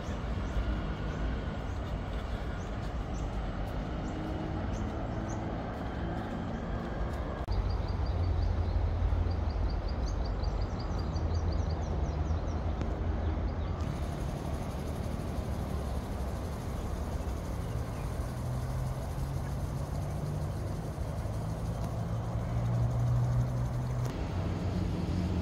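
Steady outdoor city background with a low rumble typical of distant urban traffic, shifting abruptly a few times. Faint high chirps repeat in the middle.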